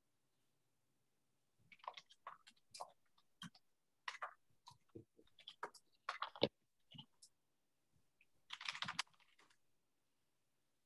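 Computer keyboard typing: a run of irregular, faint key clicks and taps, with a short, denser rustle near the end.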